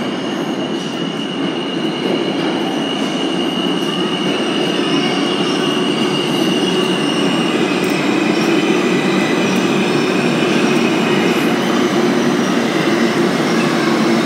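R160 subway train pulling alongside an underground platform: a steady rumble of wheels on rail with a high, steady squeal that drops a little in pitch about halfway through, the whole growing gradually louder.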